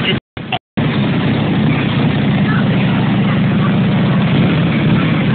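Police motorcycle engine running low and steady as it rolls slowly past. The sound cuts out briefly a few times in the first second.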